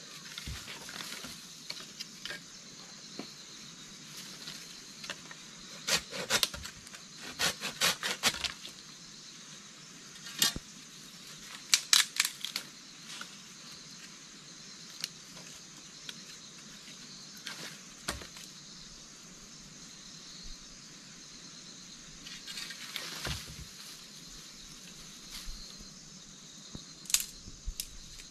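Sticks and a knife being handled and worked: scattered sharp wooden clicks and knocks, with a quick run of them about six seconds in and another pair about twelve seconds in. Insects trill steadily in the background.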